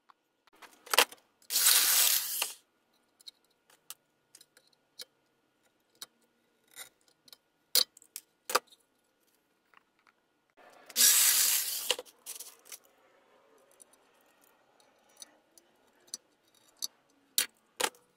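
Sheet metal from an old tool box being handled and clamped in a cast-iron bench vise: scattered sharp metallic clicks and taps, with two louder rasping noises of about a second each, near the start and about eleven seconds in.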